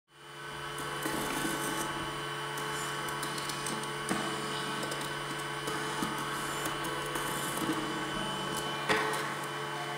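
LTO Ultrium tape drive loading a cartridge: a steady motor hum with small mechanical clicks and whirs, and a sharper click about nine seconds in.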